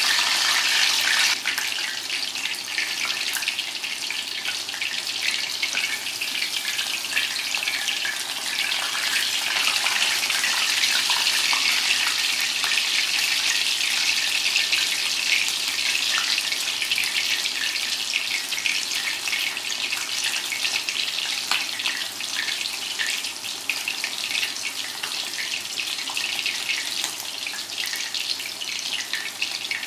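Battered boneless chicken leg frying in hot oil in a stainless steel pan: a steady, dense sizzle full of fine crackles, a little louder in the first second or so.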